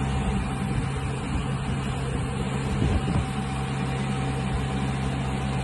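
Engine idling steadily: a constant low hum under an even rushing noise, with a faint steady higher tone.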